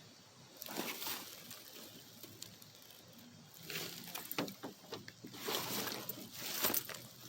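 Water splashing and sloshing in three bursts as a large hooked fish thrashes at the surface.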